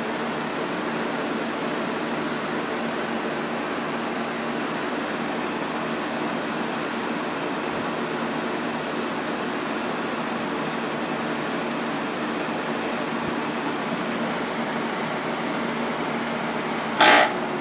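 Window air conditioner's fan running on low with a steady whooshing hum. Near the end a single brief, loud jolt as its Gree compressor kicks on.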